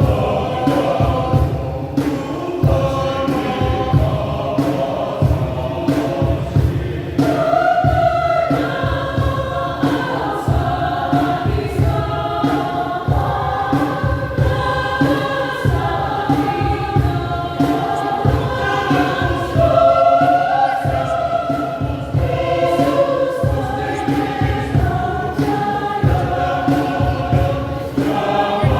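Church choir singing a piece in several voice parts, over a constant low rumbling noise.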